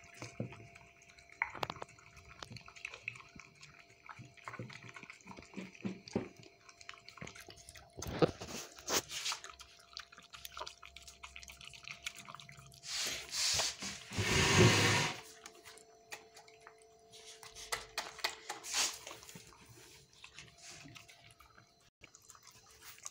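A small dog eating wet dog food chunks in gravy from a bowl: many small wet smacking and lapping clicks, with a louder noise lasting about two seconds near the middle.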